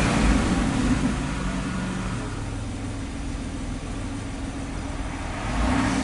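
Car engine of a 2008 Chevy Equinox, heard from inside the cabin, revved to about 2,000 rpm at the start and then dropping back to a steady idle, with a slight rise again near the end.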